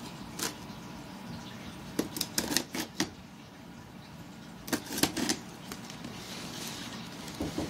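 Fingers picking and scratching at the tape and plastic packing-slip pouch on a cardboard shipping box, making scattered clicks and taps in two short clusters.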